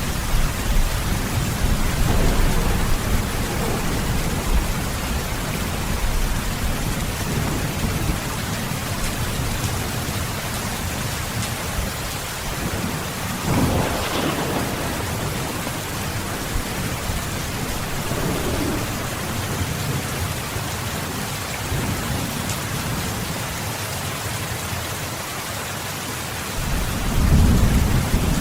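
Steady rain with rolling thunder: a low rumble at the start dies away, a sharper crack of thunder comes about halfway through, and another low rumble swells near the end.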